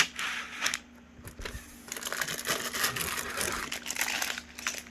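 Plastic bags of Lego pieces crinkling and rustling as they are handled, in a burst at the start and again from about two seconds in.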